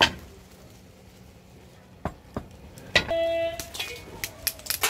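Hammer striking a freshly sand-cast metal screwdriver held over a metal bowl: a sharp blow, two lighter knocks, then a blow that leaves a brief ringing tone and a quick run of sharp taps near the end.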